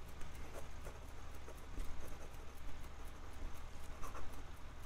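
Fine steel fountain pen nib scratching across notebook paper in quick cursive writing, with small irregular ticks as the strokes change. The nib has baby's bottom, which makes it skip on quick writing.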